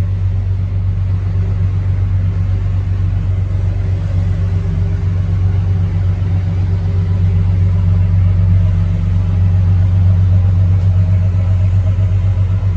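Steady low drone of a patrol boat's engines running at speed, with a rapid fine pulsing, growing slightly louder in the second half.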